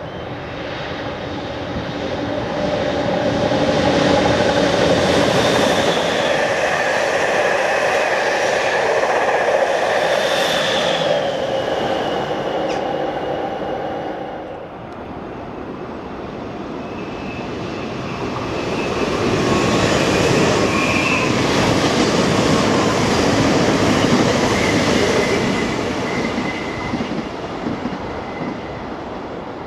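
Trains passing on an electric mainline. The first, a yellow NS passenger train, grows louder over the first few seconds and runs by with a steady rumble, whining tones and brief high wheel squeals, then fades about fifteen seconds in. A second train passes with a similar swell about twenty to twenty-five seconds in.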